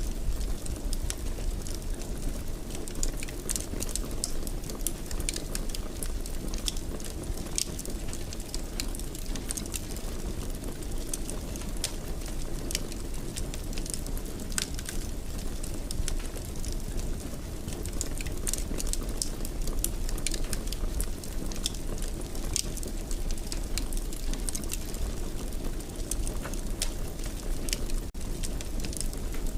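Wood fire in a fireplace crackling, with many sharp irregular pops and snaps over a steady low noise of burning.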